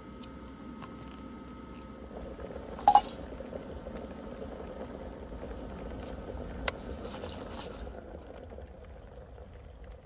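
Rain pattering steadily on the roof of a Suzuki Hustler, heard from inside the car. A sharp, ringing clink about three seconds in and a short click near seven seconds.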